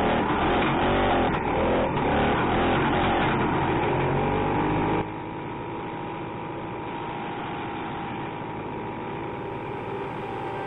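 1969 Ski-Doo Olympic 320 snowmobile's two-stroke engine running, its note wavering up and down. About halfway through it cuts off abruptly and quieter background music with held notes takes over.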